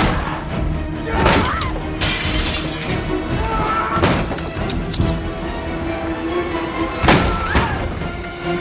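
Tense film score under a series of sharp crashes and impacts, with a burst of shattering glass about two seconds in; the hardest hits fall at the start and about seven seconds in.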